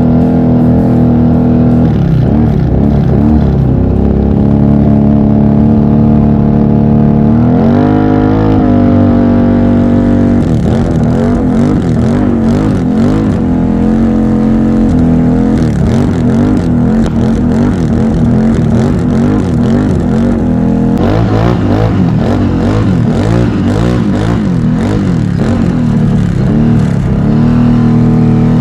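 ATV engine running under changing throttle as the quad rides along, its pitch wandering up and down, with a clear rise in revs about eight seconds in.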